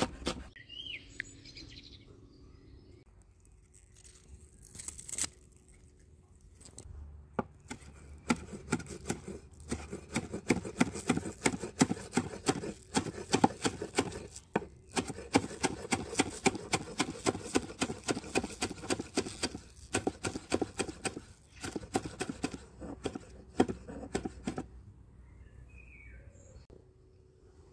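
Knife chopping vegetables on a cutting board: a long run of rapid, even strikes with a few short pauses, starting several seconds in and stopping shortly before the end. A bird chirps faintly near the start and again near the end.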